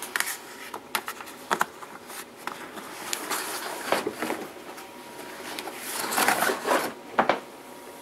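Damp clothes being pulled out of a portable washer's plastic spin tub: fabric rustling with scattered light clicks and knocks from the plastic lid and tub, loudest a little before the end.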